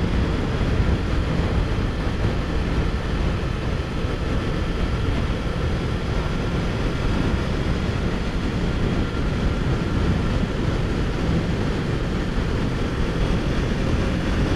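Kawasaki Ninja 300 parallel-twin engine holding a steady note at a road cruise, under heavy wind noise on the microphone.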